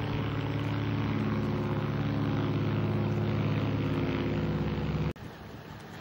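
A steady engine drone, an even hum of several tones, that cuts off abruptly about five seconds in, leaving a quieter hiss of wind and surf.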